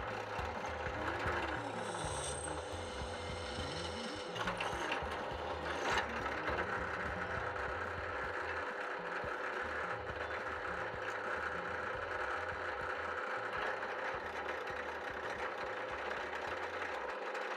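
Benchtop drill press running steadily with a constant motor hum while its 4 mm bit drills holes through angle aluminium, with a couple of short sharp clicks about four and six seconds in.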